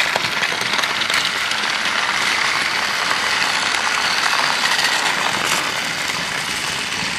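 Several battery-powered Trackmaster toy trains running on plastic track: a steady whirr of small geared motors with wheels rattling on the rails.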